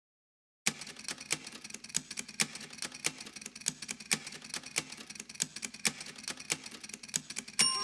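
Old-film sound effect: irregular clicks and crackle, several a second, over a faint steady hum, starting suddenly after a moment of silence. Just before the end a glockenspiel tune begins.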